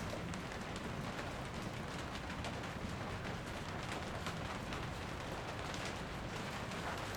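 Steady rain falling, a constant hiss with many separate drops ticking through it.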